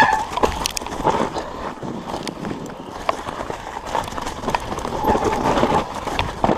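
Mountain bike ridden along a rough, snowy forest trail: steady tyre noise through snow and over roots, with frequent sharp knocks and rattles from the bike as it bounces.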